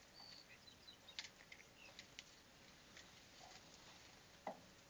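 Near silence: faint ambience with scattered soft ticks and a few faint, short high chirps, and one brief louder sound about four and a half seconds in.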